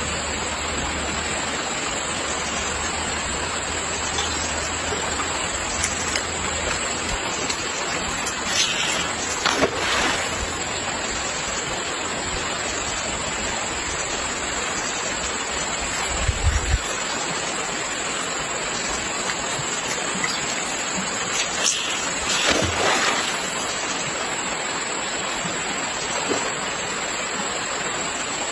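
Flowing river water rushing steadily, with a few brief splashes now and then.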